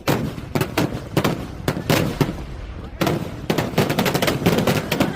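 Festival fireworks going off: a dense, rapid series of sharp bangs and crackles, one on top of another, growing thicker and louder about three seconds in.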